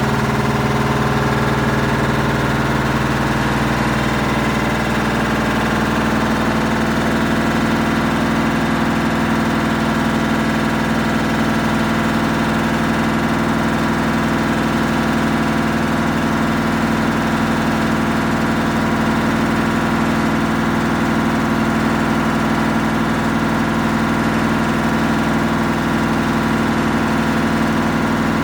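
Samsung EcoBubble washing machine running, its drum motor giving a loud, steady hum with a few constant tones. The low part of the hum shifts about five seconds in, then holds steady.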